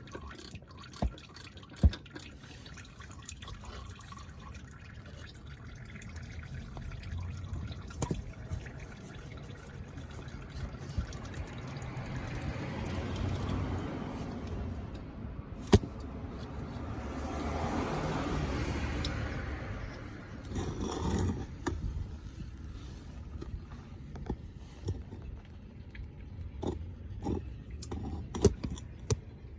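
Engine oil pouring and dripping during a Toyota Mark X oil change, the flow swelling twice in the middle. Scattered sharp clicks and knocks come from handling.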